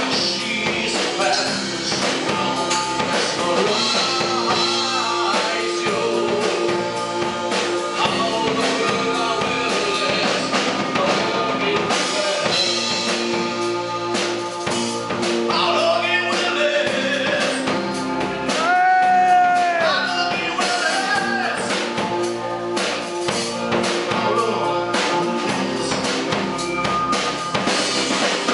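Live heavy metal band playing: a male singer over electric guitar, bass guitar and a drum kit.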